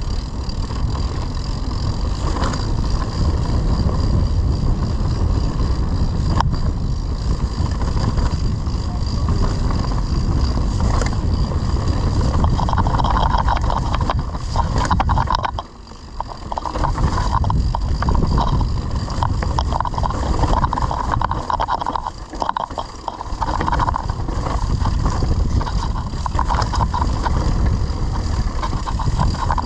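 Wind buffeting the camera microphone and tyre and trail noise from a mountain bike riding off-road. The rumble eases briefly twice, about halfway through and again a few seconds later.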